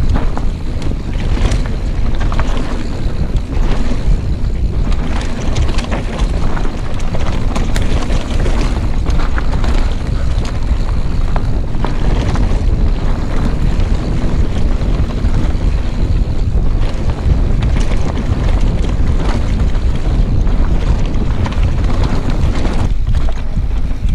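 Steady wind noise on an action camera's microphone over a mountain bike riding fast down a loose, rocky trail, with the tyres crunching over stones and many small rattles and knocks from the bike throughout.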